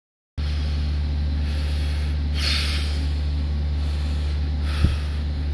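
Diesel engine of a semi truck idling, a steady low hum heard inside the sleeper cab. A brief hiss comes a couple of seconds in, and a single thump near the end.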